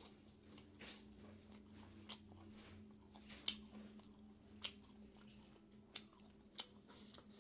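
Close-miked eating of pork and bamboo-shoot curry: wet chewing with sharp mouth clicks and smacks about once a second, over a faint steady electrical hum.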